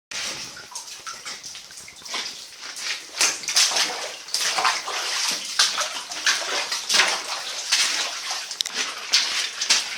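Footsteps splashing and sloshing through shallow water, an uneven run of splashes about two a second.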